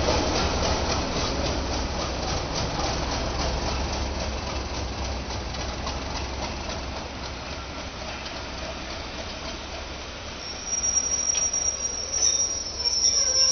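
A rake of passenger coaches rolls past with a regular clickety-clack of wheels over rail joints that slows and fades as the train loses speed. About ten and a half seconds in, a loud, steady, high-pitched wheel squeal starts as the train draws to a stop at the platform.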